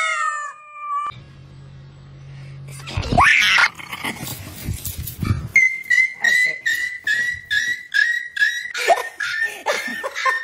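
A rubber chicken squeeze toy squawks once at the start, with a falling pitch. Later a dog gives a rising yelp about three seconds in, then barks rapidly and evenly, about two or three times a second, through the second half.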